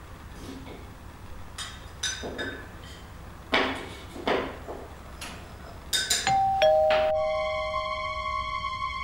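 Light clicks and knocks of things being handled on a kitchen counter, then about six seconds in a two-tone doorbell chime, ding-dong, the second note lower. Just after, a sustained music chord sets in and holds.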